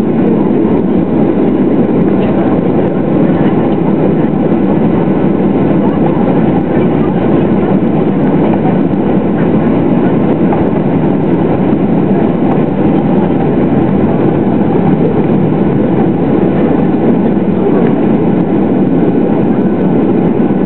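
Cabin noise of a Boeing 737-800 taxiing, heard from inside over the wing. The CFM56-7B engines run at low, steady thrust under a constant rumble of the rolling airframe, with no spool-up yet.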